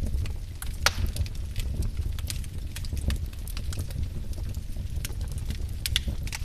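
Wood fire burning, with a low steady rumble and irregular sharp crackles and pops from the burning logs; the loudest pop comes a little under a second in.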